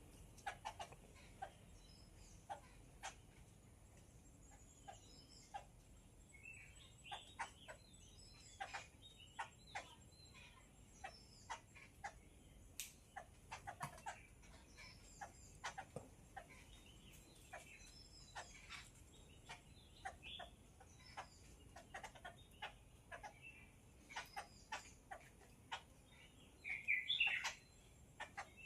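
Yellow-billed babblers calling: a scattered, irregular run of short chattering notes, with a louder burst of calls near the end.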